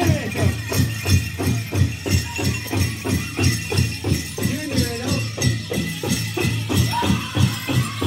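Powwow drum song: a big drum struck in a steady, even beat, with voices singing over it and the jingling of dancers' leg bells.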